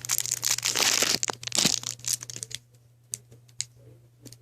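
Packaging crinkling and rustling as it is handled, dense for the first two and a half seconds, then giving way to a few light clicks.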